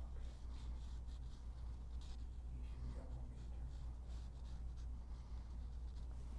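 Faint, repeated brushing of a wet watercolor brush stroked across watercolor paper, over a low steady hum.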